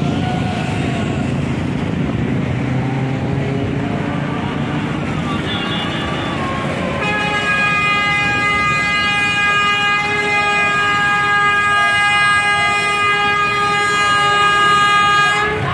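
Road traffic and engines running, then a bus horn blown in one steady note for about eight seconds from halfway through, cutting off sharply near the end.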